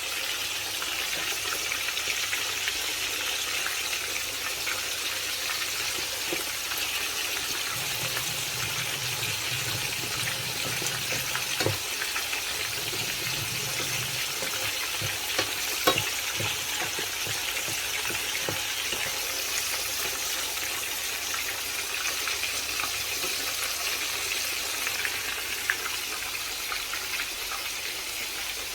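Food frying in hot oil in a pan: a steady sizzle with a few sharp pops.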